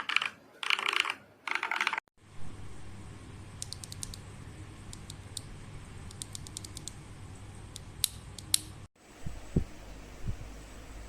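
Typing on a mechanical keyboard fitted with MMD Holy Panda V2 tactile switches: quick bursts of key clacks during the first two seconds. After that comes a low hum with a few faint clicks.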